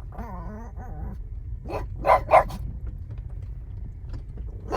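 Pug-beagle mix dog whining in a wavering pitch, then barking sharply twice a little after two seconds in, with one more bark near the end; the dog is worked up at cattle.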